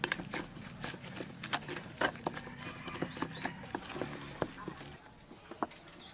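Wooden spatula knocking and scraping against a stainless steel bowl while mixing a moist, shredded filling, with irregular clicks a few times a second that thin out near the end.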